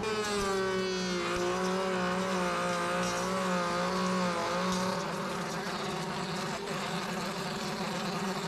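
Table router spinning a miter lock bit as a red oak board is fed past it along the fence. Its steady whine wavers slightly, then fades about five seconds in, leaving a steady rushing noise.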